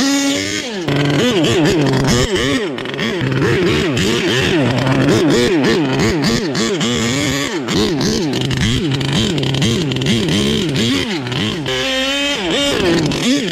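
Small two-stroke petrol engine of an HPI Savage XL Octane RC monster truck being driven, revving up and down over and over, its pitch rising and falling about twice a second, settling briefly to a steadier note near the end.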